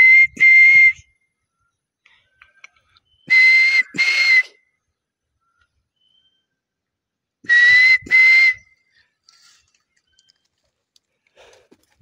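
A person whistling a two-note bird-like call three times, about four seconds apart, each note a short steady high tone with audible breath, used to call to birds.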